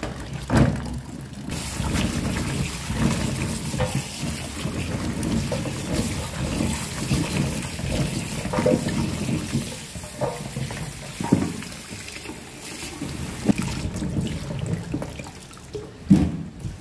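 Kitchen tap running into a plastic basin of chili peppers in a stainless steel sink, starting about a second and a half in. Water splashes and sloshes as gloved hands rub the chilies clean, with a few sharper splashes.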